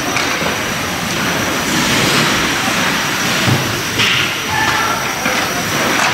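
Ice hockey game noise heard from rinkside: a steady wash of skates on the ice and spectators, with faint shouting voices and a few short stick or puck clacks.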